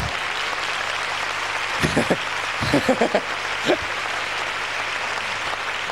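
Audience applauding steadily, with a few brief voices calling out over it about two to four seconds in.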